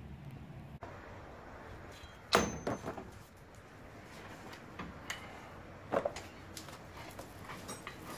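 Clanks and knocks of heavy steel winch-mount parts being handled and set down: a sharp clank a little over two seconds in, the loudest, another about six seconds in, and smaller knocks between.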